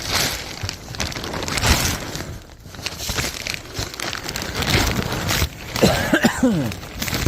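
Plastic ground sheeting crinkling and rustling irregularly as a person crawls over it in a crawlspace, with scuffs and scrapes.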